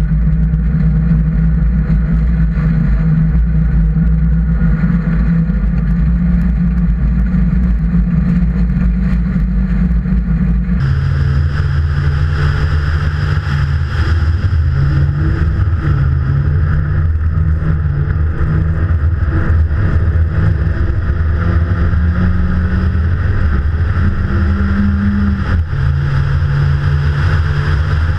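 V1600-class rally car's engine running hard on an ice track, heard first through the caged cabin. About eleven seconds in, the sound switches abruptly to the engine heard from outside at the front of the car. The engine note then steps up and down with throttle and gear changes.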